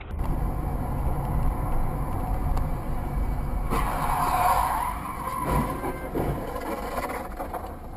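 Car driving, with steady engine and road rumble, and a brief tyre skid about four seconds in.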